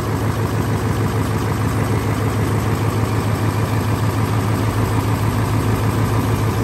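Hino F21C V8 diesel engine of a crawler rotary tiller running steadily, a low, even drone.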